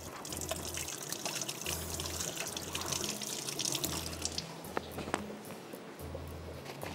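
Water running from a kitchen tap as hands are washed under it, with small splashes, dying down near the end.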